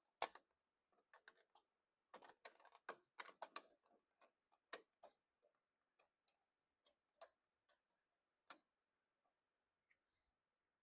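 Faint, scattered clicks and taps of plastic and metal parts being handled while a copier's document feeder is reassembled, with a sharp click about a third of a second in and a quick run of taps a couple of seconds later.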